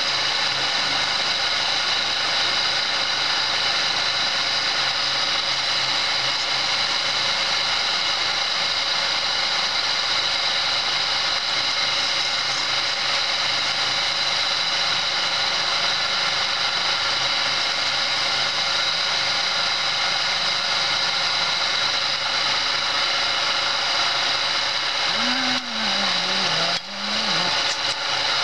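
Homemade belt-driven wood lathe running at speed, a steady high whine with many tones, while a chisel cuts into the spinning wooden baluster blank. Near the end a few knocks and a brief low wavering tone.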